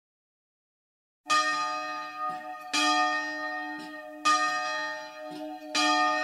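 A church bell tolling after about a second of silence: four slow strikes about a second and a half apart, each left ringing on.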